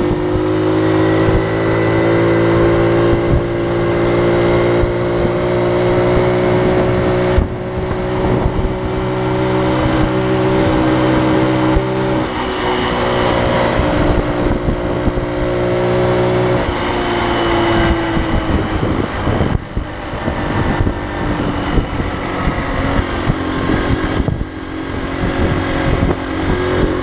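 Honda PC50 moped's small 49cc engine running under way at a fairly steady pitch, which shifts about twelve seconds in and again a few seconds later as the speed changes.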